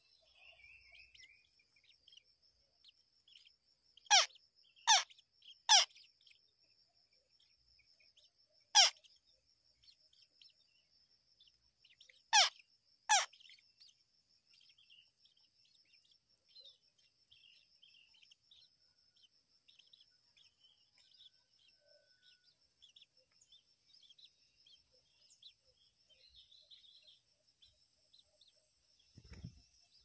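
Shrikes calling at the nest: six sharp, high notes that sweep steeply downward, three in quick succession, then one, then a pair. Under them run a steady high insect drone and faint soft chirping, and a low thump comes near the end.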